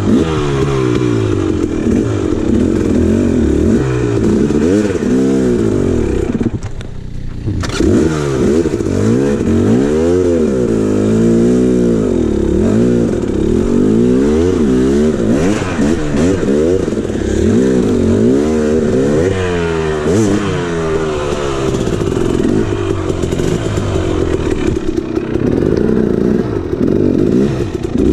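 KTM 300 XC two-stroke dirt bike engine revving up and down without a break as it is ridden over rough trail. It dips briefly about seven seconds in.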